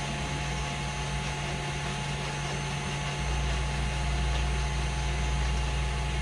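Steady motor hum of a kitchen appliance running, growing a little louder and steadier about three seconds in.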